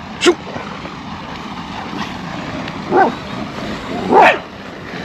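Dogs barking in a standoff with a rival pack of street dogs: three separate barks, one just after the start, one about three seconds in, and a louder, longer one about a second later.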